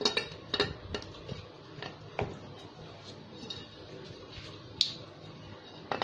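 Light metallic knocks and clinks of a steel scooter wheel-rim half being handled and fitted into a tyre. There are several sharp taps in the first couple of seconds and another near the end.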